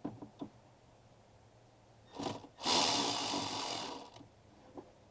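Electric ratchet with an 8 mm socket undoing the battery's negative terminal bolt: a brief blip of the motor about two seconds in, then a steady run of about a second and a half. A few light clicks of metal on the terminal come before it.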